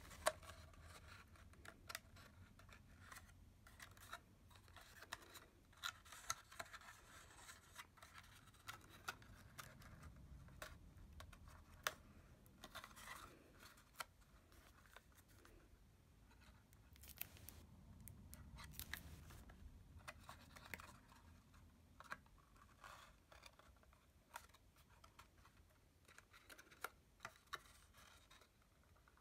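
Faint, scattered rustles and small clicks of cardstock being handled, folded and pressed into place.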